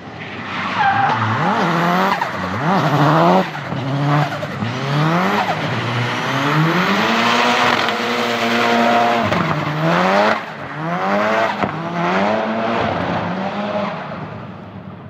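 Tuned 500+ hp Nissan 200SX engine revving up and down again and again, with tyres squealing under wheelspin in a drift or burnout. The revs drop briefly about ten seconds in before climbing again.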